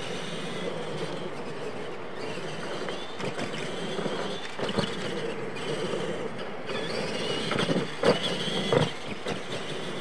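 Several electric R/C monster trucks racing on dirt: their motors and gears whine, rising and falling with throttle, over tyre and dirt noise. A few sharp knocks near the end as a truck lands or strikes the track.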